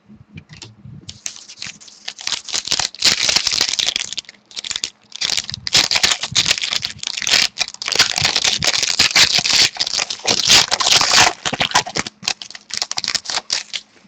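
Trading cards and their packaging being handled: dense, irregular rustling and clicking of card stock and wrapper, in spurts with short pauses.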